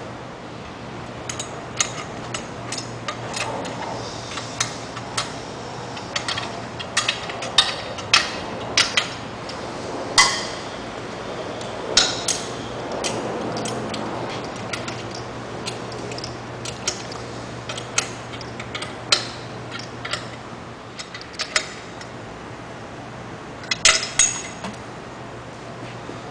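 Irregular metallic clicks and clinks of hand tools on nuts and bolts as the exhaust is fastened to its mounting bracket, with a quick cluster of clinks near the end, over a steady low hum.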